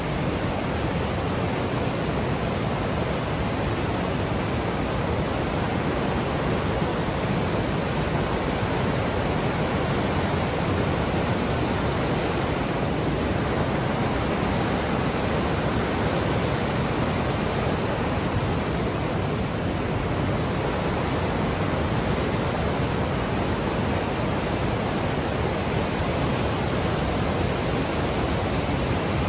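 Class 6 whitewater rapids of the Niagara River rushing close by: a steady, unbroken rush of churning water.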